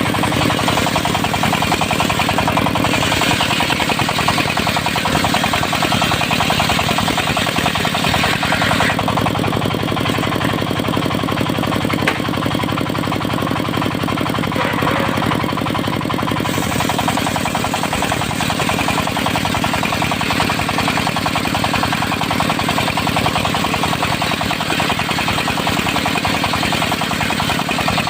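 Diesel engine of a mobile circular-saw sawmill running steadily with a fast knocking beat. A higher hiss rides over it and drops away for several seconds near the middle.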